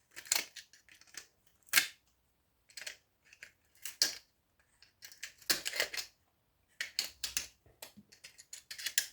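Irregular short, sharp clicks and snips of hand tools and metal as copper is stripped by hand from scrapped microwave parts, some coming in quick clusters.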